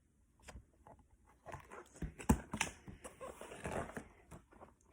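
A picture book's page being turned: a few soft knocks of handling about two seconds in, then a rustle of paper.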